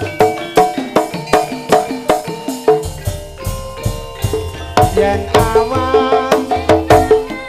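Javanese gamelan dance music: sharp, quick drum strokes over ringing metal-keyed notes, with a deep, lingering low stroke about three seconds in.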